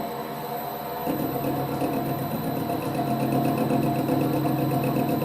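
Holbrook C8 toolroom lathe running, its hum growing louder and fuller about a second in as the dialled-in cut starts under power feed. A light, regular ticking about four times a second runs with it.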